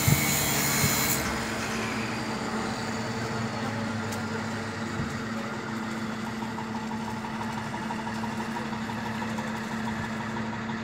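Engine idling with a steady, constant hum; a bright hiss dies away about a second in.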